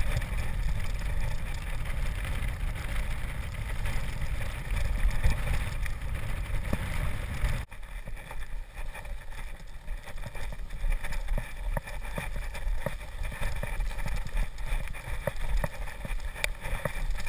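A mountain bike riding over a muddy forest trail, heard through an action camera's microphone: a heavy rush of wind on the microphone with rolling tyre noise, which drops suddenly about seven and a half seconds in, leaving frequent knocks and rattles of the bike over the rough ground.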